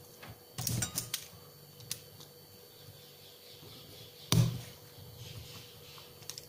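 Handling noise of small plastic multimeter-probe parts and a snap-off utility knife on a wooden board: a few sharp clicks and knocks just under a second in, a small click at about two seconds, and the loudest knock about four seconds in.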